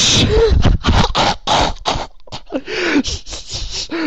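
A person's voice making high-pitched, squeaky noises instead of words: short rising-and-falling squeals mixed with breathy bursts.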